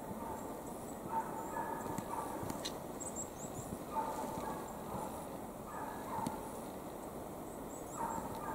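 Distant scent hound baying on the track: short calls repeated every second or two, some in quick pairs. Footsteps sound on the forest floor beneath them.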